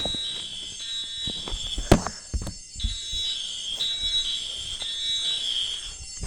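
Electronic fire-alarm tone switching between a high and a slightly lower pitch about every half second. It breaks off for about a second in the middle, where two sharp knocks sound.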